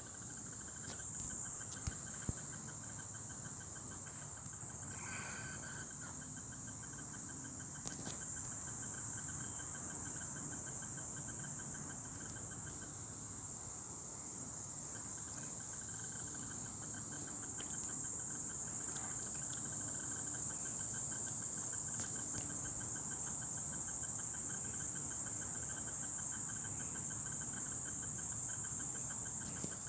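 Steady high-pitched trilling chorus of insects, with a couple of faint clicks early on.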